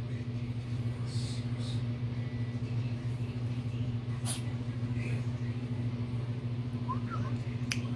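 A steady low hum with a few faint clicks and a brief faint squeak near the end.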